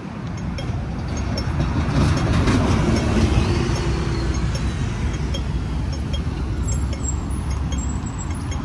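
Road traffic on a city street: a vehicle passes and swells up about two to four seconds in, then a steady traffic hum continues.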